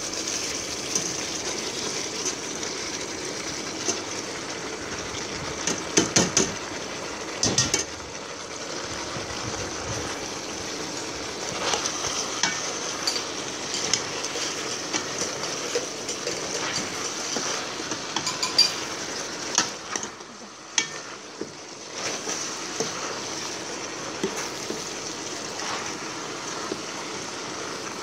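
Stew sizzling in a stainless steel pot while a steel ladle stirs vegetables through it. Sharp clinks and knocks of the ladle against the pot come now and then, in a cluster around six to eight seconds in.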